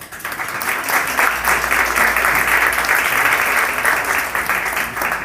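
Audience applauding: many hands clapping together, starting suddenly and fading away near the end.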